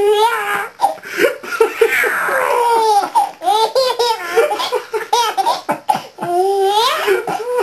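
Baby laughing hard and continuously: runs of short, rapid belly-laugh bursts, with a longer high squealing laugh near the end.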